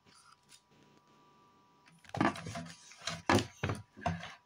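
Faint steady hum, then from about two seconds in a quick run of short bumps and rustles, handling noise from someone moving things about.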